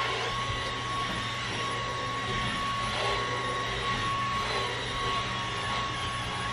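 Dyson Outsize cordless stick vacuum running steadily as it is pushed over fabric sofa cushions. It makes a steady rushing of air with a high, even whine.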